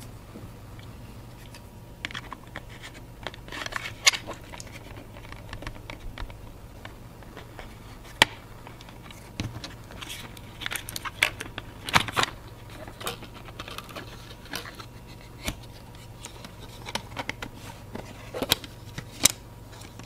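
Plastic clamshell case of a power bank being pried apart by hand and with a thin metal pry tool: irregular scraping and sharp clicks as the snap-fit clips give way.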